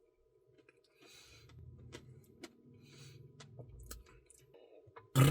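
Soft eating sounds: faint chewing of ice cream with a few light clicks, then a short, steady hummed vocal sound near the end.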